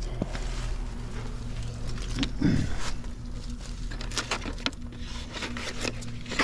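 Clicks and light rattles of a sheet-metal access panel being removed and handled on an outdoor AC condensing unit, over a steady low hum.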